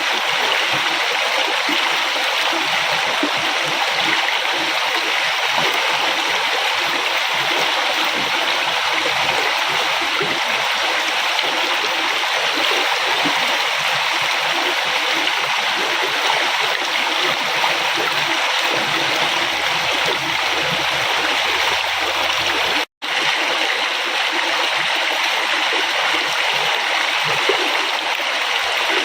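River water flowing steadily, a continuous even splashing and gurgling of a stream. About three-quarters of the way through it drops out for an instant, then resumes.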